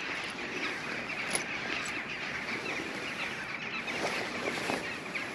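A steady, dense chorus of many birds chattering and calling over one another.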